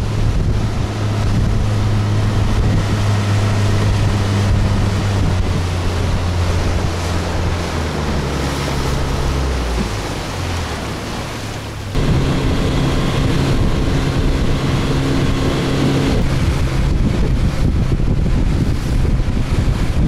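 Small motorboat running under way: a steady engine hum, with water rushing along the hull and wind buffeting the microphone. The engine note sinks and eases about eight to eleven seconds in, then the sound changes abruptly about twelve seconds in to a different steady engine drone.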